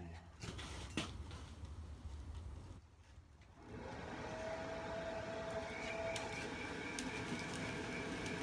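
Air blower feeding the brake drum forge starts up about three and a half seconds in and runs steadily, a constant whine over a hiss of rushing air. Before it, a low rumble and a single knock about a second in.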